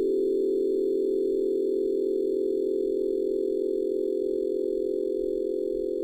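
A steady drone of pure, sustained electronic tones in the middle range, several close pitches beating gently against each other, with faint high steady tones above: chakra-tuning frequencies held without a break.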